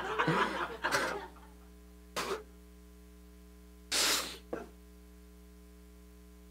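A man laughing quietly into a microphone for about the first second. Then come two short, sharp breaths or snorts of laughter, about two seconds apart, over a steady mains hum.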